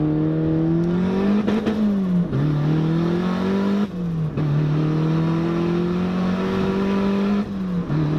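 Turbocharged Mazda Miata's four-cylinder engine under hard acceleration, heard from inside the cabin. The pitch climbs through each gear and drops sharply at three upshifts, about two, four and nearly eight seconds in.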